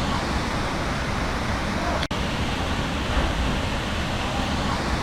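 Waterfall rushing, a steady even roar of falling water, briefly cut about two seconds in.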